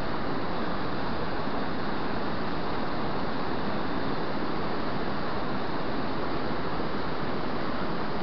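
Fast, turbulent river water rushing steadily through the fish ladder channel.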